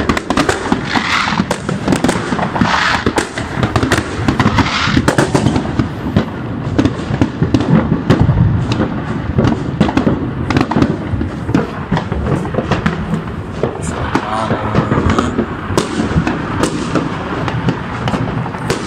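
Fireworks and firecrackers going off all around, a dense, unbroken crackle of overlapping bangs.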